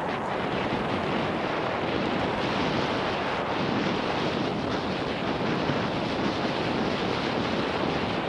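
Steady rush of wind over a helmet-mounted 360 camera's microphone as a mountain bike rolls fast down a dirt forest trail, mixed with the rumble and rattle of the tyres and bike on the ground.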